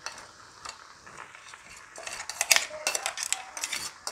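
A spoon scraping and clinking against a cooking pan as ground coconut paste is spooned onto cooked vegetables. A few light clicks at first, then a quick run of scrapes and clinks from about two seconds in.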